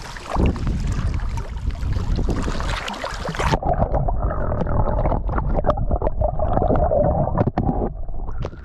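Lake water sloshing at the shoreline with wind on the microphone as a bass is let go by hand; about three and a half seconds in, the action camera goes under the surface and the sound turns suddenly muffled, with underwater bubbling and many small ticks and knocks.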